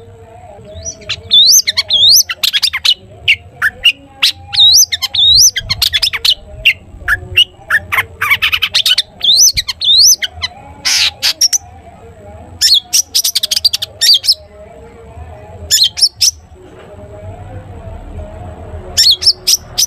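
Long-tailed shrike (cendet) singing a fast, varied run of sharp chirps, harsh squawky notes and curved whistled notes, in clusters with a short pause in the second half.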